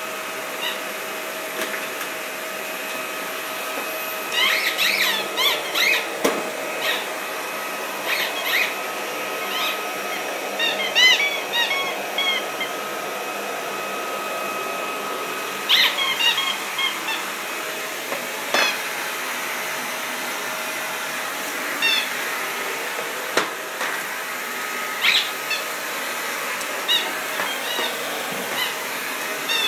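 Vacuum cleaner running with a steady hum, while a rubber squeaky toy squeaks in short clusters of high squeaks every few seconds, as if being chewed.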